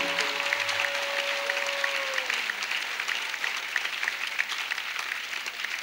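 Congregation applauding, with dense clapping that gradually thins and fades. A single held tone sounds over the clapping for about the first two seconds.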